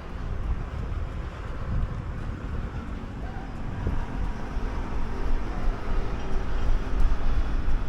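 Outdoor city ambience with a low rumble of road traffic, growing louder toward the end.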